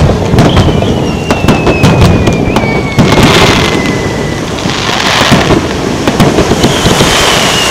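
Fireworks going off in a rapid string of sharp bangs and crackles over a continuous low rumble. A thin whistle slides slowly down in pitch through the first half, and another begins near the end.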